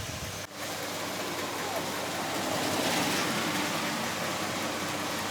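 Heavy typhoon rain and wind noise around a vehicle, swelling briefly about three seconds in, over a faint steady low hum.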